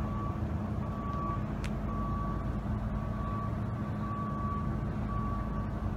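An electronic warning beeper sounding a short beep at one steady pitch about once a second, over a steady low hum, with a single click about one and a half seconds in.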